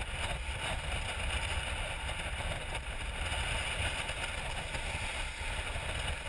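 Sailboat driving fast through choppy seas under sail: a steady rush of water and spray along the hull, over a low rumble of wind buffeting the microphone.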